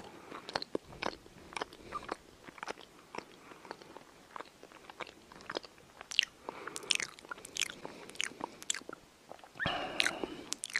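Cat grooming itself right by the microphone: an irregular run of wet licking and smacking clicks, louder near the end.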